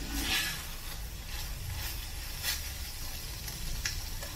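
Wooden spoon stirring shredded plantain peel through a thick tomato sauce in a cast-iron skillet, with a few soft wet scrapes over a faint sizzle.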